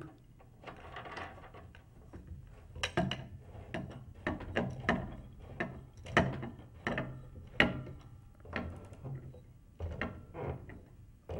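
A Pearl bass drum pedal's metal hoop clamp being seated on the bass drum hoop and its wing nut turned by hand: a run of irregular clicks and rattles, starting about three seconds in.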